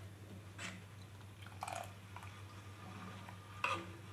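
A steel ladle knocking and scraping against the inside of a steel pot while stirring simmering sambar: three short clinks, the loudest near the end, over a low steady hum.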